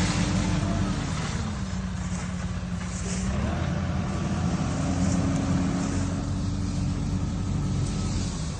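Tractor engine running and driving a branch sweeper, with the sweeper's working noise over the engine. Engine speed drops about a second in, picks up again about three seconds in, and drops again near the end.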